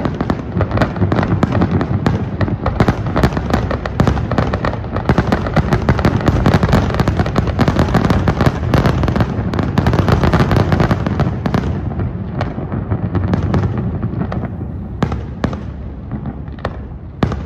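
Fireworks display: a dense, rapid barrage of bursts and crackles over a low rumble, thinning from about twelve seconds in to a few scattered bangs.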